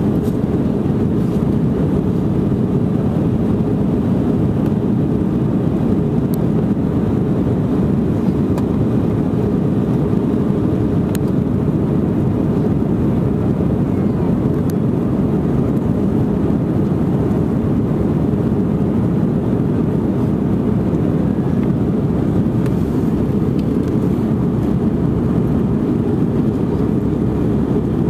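Steady engine and airflow noise heard inside the cabin of an Airbus A319 airliner, even and unchanging, with most of its weight low down.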